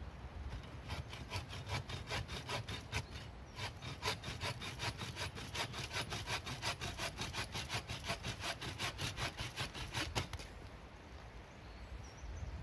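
Hand saw cutting through a wooden branch in quick, regular strokes, about five a second. There is a short pause a little after three seconds in, and the sawing stops about ten seconds in.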